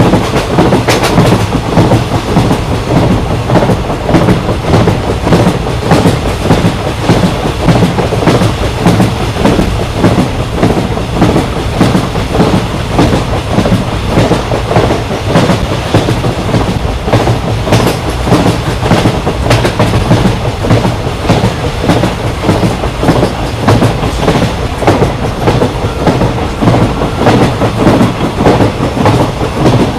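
Indian Railways ICF passenger coach running at speed: a loud, steady rumble of wheels on rail with a fast, continuous clickety-clack of the wheels over rail joints.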